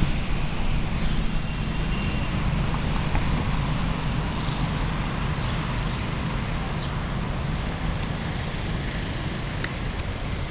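Steady outdoor background noise dominated by a low, fluttering rumble, with no distinct events standing out.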